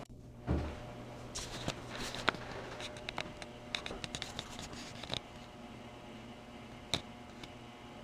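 Heritage ceiling fan running, its motor giving a faint steady low hum. A soft thump comes about half a second in, then scattered light clicks and taps through the first five seconds and one more click near the end.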